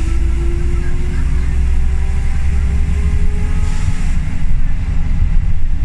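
Scania L94UB single-deck bus heard from inside the passenger saloon, running on the move with a deep steady rumble. A thin whine rises slowly in pitch over the first few seconds as the bus gathers speed.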